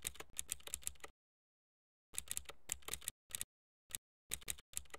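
Faint computer keyboard keystrokes typing a web address, in quick runs of clicks with short pauses between: one run over about the first second, another from about two to three seconds in, then a few shorter bursts.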